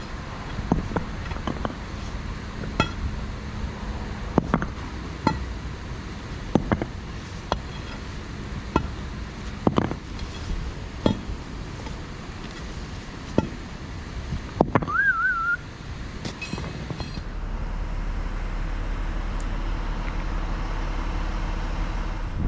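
Irregular sharp clinks and knocks of hard objects striking each other, some ringing briefly, over a low machine rumble. A short warbling whistle comes about two-thirds of the way in, and a steady low engine hum takes over near the end.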